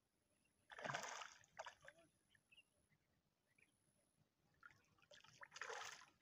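Two brief splashes of water, about a second in and near the end, as a small fish is pulled from the reservoir on a hand line.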